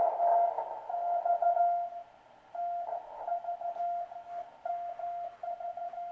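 Morse code (CW) signal received on a Heathkit SB-301 ham receiver: a steady beep keyed on and off in dots and dashes over soft band hiss, with a short break in the keying about two seconds in. The beep's low pitch comes from the receiver's narrow 400 Hz CW crystal filter.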